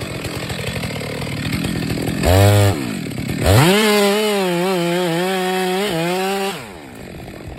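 Two-stroke chainsaw idling roughly, blipped once about two seconds in, then held at high revs for about three seconds with its pitch dipping slightly, before dropping back to idle near the end.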